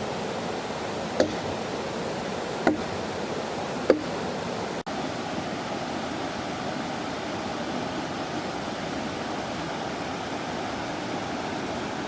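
Steady rushing noise, like running water, with three sharp knocks about a second and a half apart in the first four seconds.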